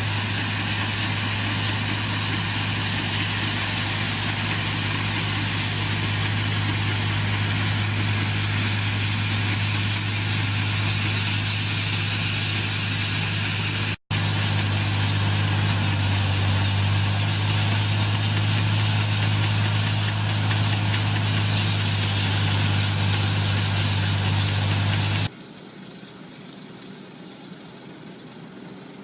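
Tractor engine running at a steady speed with a strong low hum, broken by a brief gap about halfway through, then dropping abruptly to a much quieter background a few seconds before the end.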